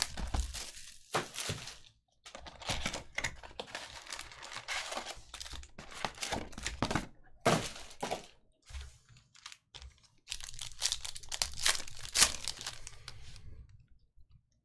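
A cardboard trading-card box torn open, then foil card packs ripped and crinkled open, in repeated tearing and crinkling bursts with a short lull about eight seconds in.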